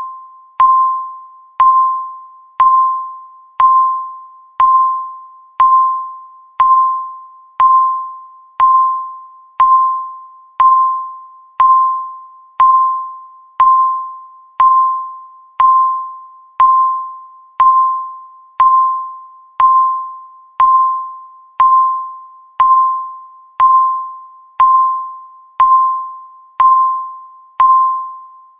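Countdown timer beeping once a second: a single electronic tone at the same pitch each time, struck sharply and fading quickly, counting off the seconds left.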